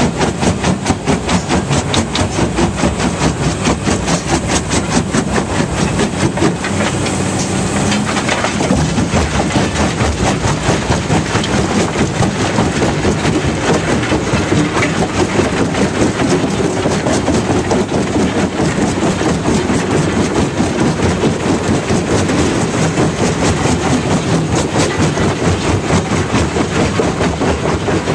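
Fintec 1107 mobile jaw crusher running under load, crushing limestone: a steady heavy machine drone under a fast, even, rhythmic knocking and rattling of rock in the jaw.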